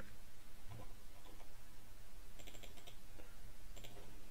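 Computer keyboard keystrokes and mouse clicks: a few faint taps, then a quick run of clicks about two and a half seconds in and a single click near the end, over a steady low hum.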